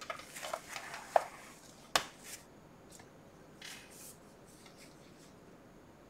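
Paper pages of a handmade junk journal rustling and crackling as it is handled and laid flat, with a sharp tap about two seconds in and a softer rustle later on.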